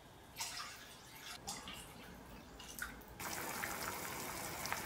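Water poured from a measuring cup into a steel frying pan of softened tomatoes, splashing and dripping. A little past three seconds in, a steady hiss takes over as the watery pan heats on the gas hob.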